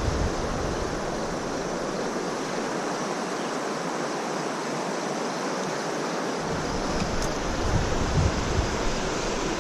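River water running, a steady rushing noise, with wind rumbling on the microphone for the first couple of seconds and again from past the middle.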